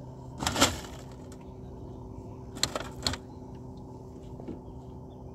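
Fishing reel's drag buzzing out in short bursts as a hooked fish pulls line: one longer burst about half a second in and three quick ones around three seconds in. A steady low motor hum from the boat runs underneath.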